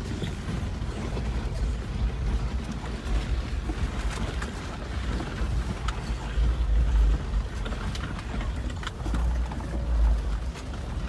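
Vehicle driving slowly over a rough rocky off-road trail, heard from inside the cab: a low engine and road rumble that swells and eases, with scattered knocks and rattles as it bumps along.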